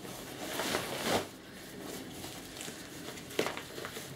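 Rustling and crinkling of a waterproof parka's fabric as its front buttons are undone by hand, with a sharp click about three and a half seconds in.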